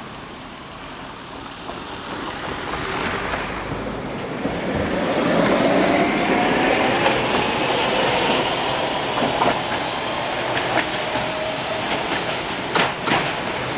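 A CKD Tatra tram passing close by, its wheels rumbling on the track and its traction motors whining in a slowly rising pitch, loudest a few seconds in. Near the end come sharp clacks of wheels crossing rail joints.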